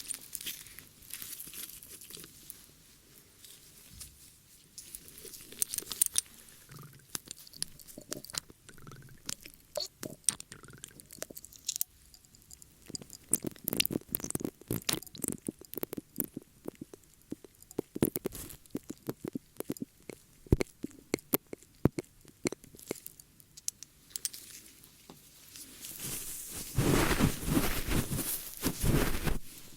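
ASMR ear-cleaning sounds close to the microphone: irregular crackling, scratching and small clicks, with a louder stretch of rubbing near the end.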